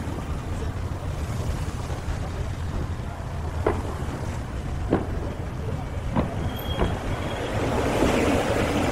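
Aerial fireworks going off: four sharp bangs roughly a second apart in the middle, over a steady low rumble, with a rising crackle near the end as more shells burst.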